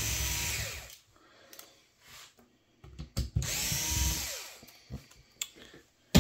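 Power screwdriver backing out the two screws that hold a copier drum-unit cleaning blade: one short run ending about a second in, and a second run of about a second and a half near the middle. A sharp click comes at the very end.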